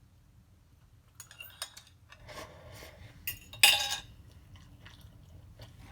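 Eating utensil clicking and scraping against a dish, with a few light clicks, a stretch of scraping, then one louder clatter a little past halfway.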